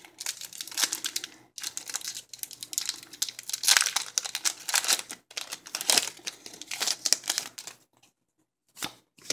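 Foil wrapper of a Pokémon Trading Card Game booster pack being torn open and crinkled by hand, a dense crackling rustle that lasts about eight seconds. It then drops almost to silence, with a couple of sharp clicks near the end.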